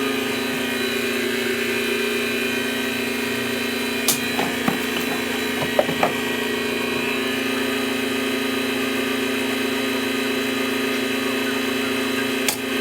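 A small motor running at a constant speed with a steady hum, with a few light knocks about four to six seconds in.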